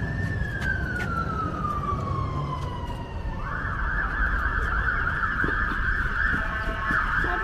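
Emergency vehicle siren in city traffic: one slow wail falling in pitch, then switching to a fast warble about three and a half seconds in, over a low traffic rumble.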